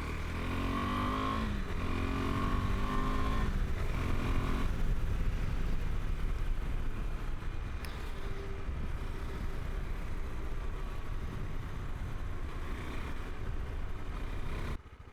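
KTM 390 Adventure's single-cylinder engine under way, its note climbing and falling through the gears over the first few seconds, then running steadily under a heavy low rumble. The sound drops off suddenly near the end.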